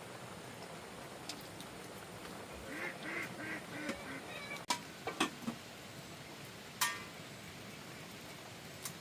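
Duck quacking, a quick run of about five quacks about three seconds in, followed by a few sharp clicks, over a steady hiss of rain.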